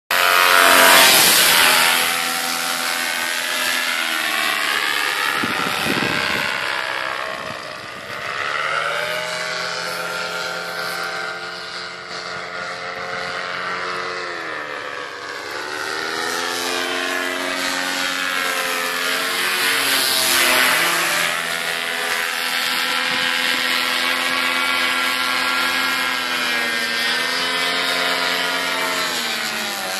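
Cors-Air Black Devil paramotor, a single-cylinder two-stroke engine driving a propeller, running steadily as the powered paraglider flies. Its pitch glides up and down with throttle changes and as it flies close past, loudest about a second in and again about twenty seconds in.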